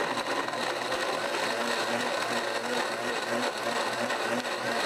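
Blendtec countertop blender running steadily at high speed, blending soaked almonds and hazelnuts with water into a thick nut milk.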